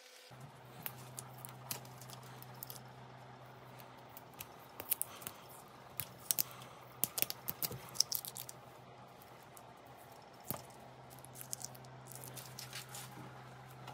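Black insulating tape being handled and wound around a steel bicycle chainstay: irregular crackles and sharp clicks of the tape peeling and stretching, busiest in the middle, over a low steady hum.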